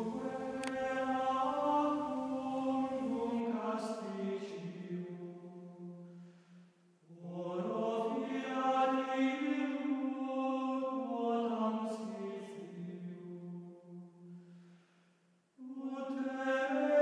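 Voices singing a slow devotional chant in long, held phrases, with a low note sustained under the moving melody. There are breaks for breath about seven seconds in and again near the end.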